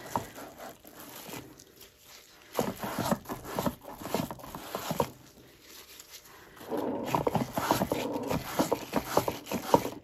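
A rag wiped back and forth over a plastic shower cap stretched on a cake spinner, rubbing and scraping off wet acrylic paint. It comes in two bouts, the first from about two and a half seconds in and the second from about seven seconds in.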